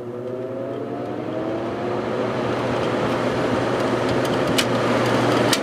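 Fan motor of a 1972 General Electric 6,000 BTU window air conditioner starting up on medium speed: a hum that rises in pitch as the motor spins up, with the rush of air from the fan growing louder. There is a sharp click about four and a half seconds in and another near the end.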